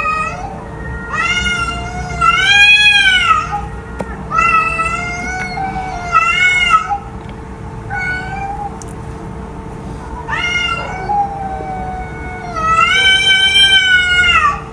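Domestic cat meowing repeatedly, about seven meows, some short and some long and drawn out with a rise and fall in pitch, the longest near the end. A steady faint hum sits underneath.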